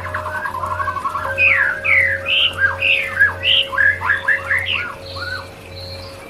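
White-rumped shama (murai batu) singing: a fast trill of repeated notes falling in pitch, then a string of varied loud whistles sliding up and down, fading near the end. A steady low hum runs underneath.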